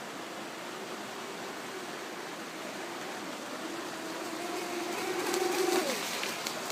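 Brushless electric motor of a radio-controlled jetski whining at speed over a steady hiss, growing louder as it approaches, then dropping in pitch as it passes close near the end.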